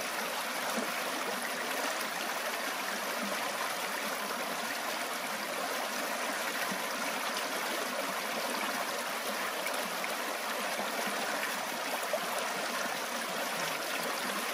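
Shallow creek water rushing over rocks close up, a steady, even rush with churning and splashing.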